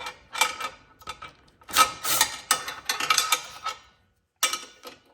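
Wrench and socket working a control-arm bolt: irregular metallic clicks, clinks and short scrapes as the bolt is snugged up, with a pause near the end.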